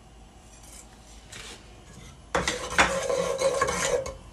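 Wooden spoon stirring and scraping cumin seeds around the bottom of a steel pot of hot ghee and oil, lightly toasting them. The scraping and clattering start about halfway through, with a ringing note from the pot.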